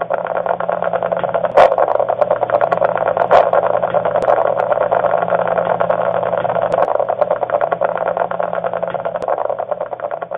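EMG audio from a hypodermic needle electrode in the neck muscle, played through a Myoguide EMG unit's speaker: a dense, fast crackling static, the interference pattern of a muscle that is firing, voluntarily or involuntarily from cervical dystonia, confirming the needle tip sits in active muscle. A couple of louder pops stand out in the first few seconds, over a faint steady low hum.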